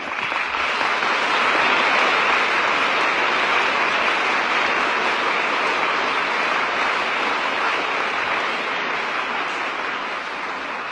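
Audience applauding. The clapping starts abruptly, builds to its peak about two seconds in, then slowly tapers off toward the end.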